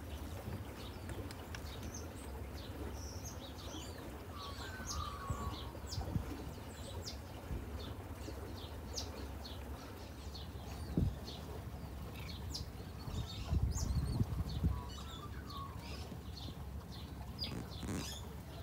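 Birds chirping, many short high calls in quick succession with a couple of lower warbling trills, over a steady low rumble.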